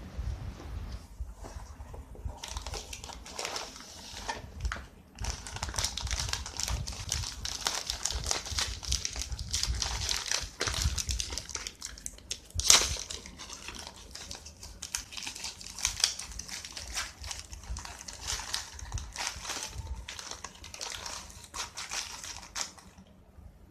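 Crinkling and crackling of a gold foil snack packet and its cardboard box being handled, the packet pulled and torn open, with the loudest sharp crackle about halfway through.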